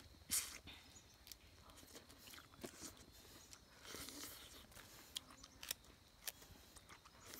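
A person eating fresh grapefruit segments: wet bites, chewing and sucking at the juicy pulp, heard as scattered short crisp clicks with the loudest bite just after the start.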